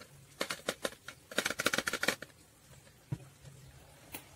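Plastic soda bottle with white powder inside being shaken and tilted by hand: bursts of dry, crackly rattling for the first two seconds or so, then a single knock about three seconds in.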